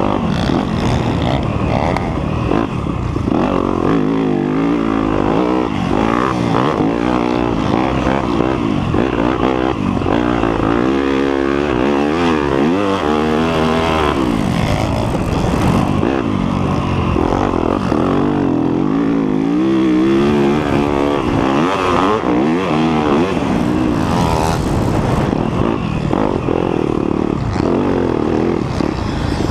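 2019 Yamaha YZ250F's four-stroke single-cylinder engine revving up and down under hard riding, the pitch climbing and dropping every second or two with throttle changes and gear shifts.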